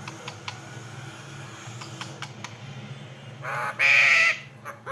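Baby pet parrot giving a loud squawk about a second long, most of the way through, with another call starting at the very end.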